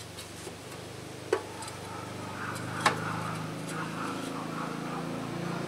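Two sharp clicks about a second and a half apart, as a booster fan is handled against a small engine's metal flywheel screen. Under them runs a steady low mechanical hum that grows slightly louder.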